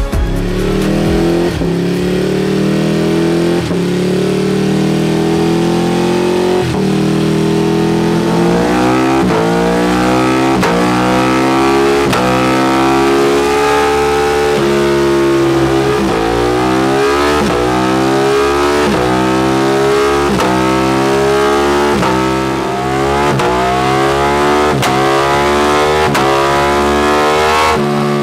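Ducati Panigale V2's 955 cc L-twin engine through a full Akrapovič exhaust, revving hard, likely on a dyno for tuning. The revs climb slowly for about eight seconds, then rise and drop back in quick pulls about once a second.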